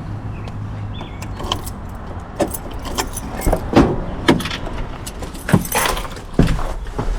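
Metal clinking and rattling: a string of sharp clicks and knocks over the steady low rumble of a car.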